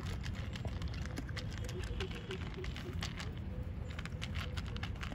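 A dog crunching dry food from a plastic bowl: a run of short crisp clicks, busiest in the second half, over a steady low background rumble.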